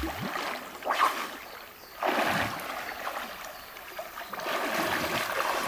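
River water splashing in uneven surges over the steady rush of the stream, as people bathe in it.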